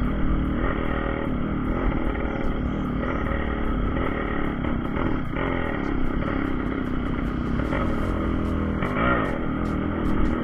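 Yamaha RX 135's single-cylinder two-stroke engine running steadily as the motorcycle is ridden along the road.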